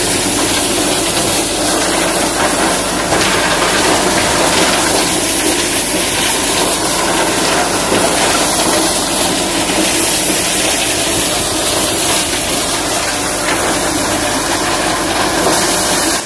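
Tractor-powered corn sheller running steadily, a loud, even mechanical din of the tractor engine and the shelling machine at work.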